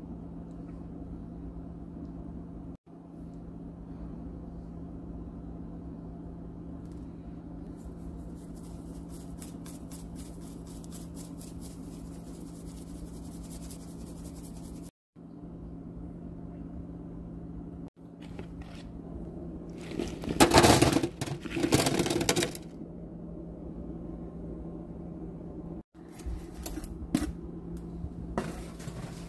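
Food preparation over a steady low hum. About a third of the way in comes a run of quick, light rattles as seasoning is shaken onto raw sweet potato cubes. Later there are two loud seconds of clattering and scraping as the cubes are moved about in the bowl and tray, with a few clicks near the end.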